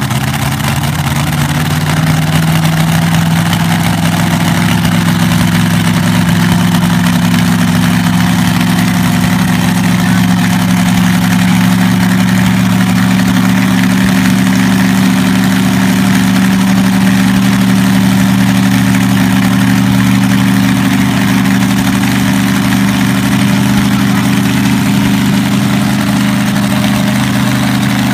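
Supercharged V8 engine of a front-engine dragster idling loudly and steadily. The idle creeps up slightly in pitch over the first couple of seconds, then holds.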